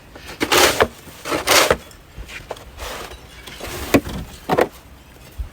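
Irregular short knocks and scrapes, about five of them a second or so apart, with quieter gaps between.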